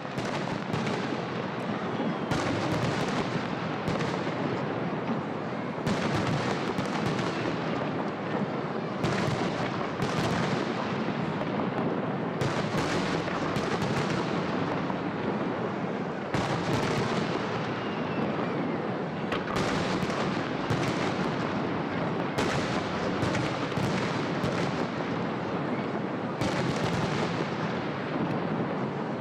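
Aerial fireworks shells bursting in a dense, continuous barrage: a steady rumble of reports with sharper bangs every second or two.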